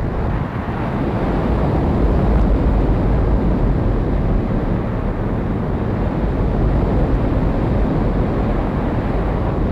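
A steady, dense rush of wind buffeting the onboard camera's microphone, mixed with the electric motor and propeller of an E-flite Air Tractor RC plane in flight.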